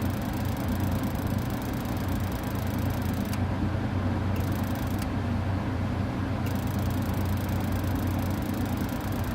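Lennox G20 gas furnace running with a steady low hum.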